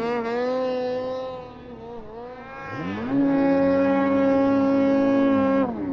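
Ski-Doo Summit snowmobile's two-stroke engine revving high while pushing through deep snow: it eases off about two seconds in, revs back up and holds steady at high revs, then drops and picks up again near the end.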